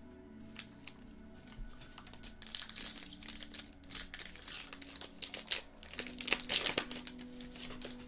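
Foil wrapper of a Bowman Chrome baseball card pack being torn open and crinkled. A run of crackling rustles starts about two seconds in and is loudest near the end, over a faint steady low tone.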